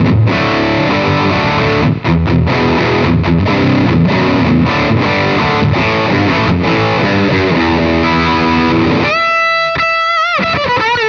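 Electric guitar through a Caline Jaguar Classic High Gain Distortion pedal, its gain at about noon for full high-gain crunch, playing a choppy rhythm riff with short stops. About nine seconds in it switches to a held single note with vibrato.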